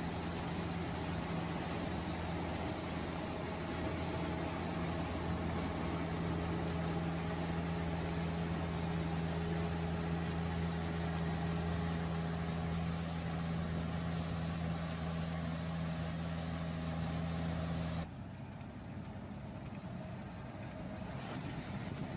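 Cotton picker's engine running steadily with a deep, even hum. About eighteen seconds in it cuts off abruptly, and a quieter machine noise takes over.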